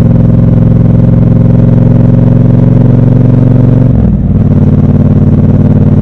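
Triumph 1200 cc parallel-twin motorcycle engine pulling steadily under load, recorded raw and close. About four seconds in the note briefly drops out and dips, as at a gear change, then carries on steadily.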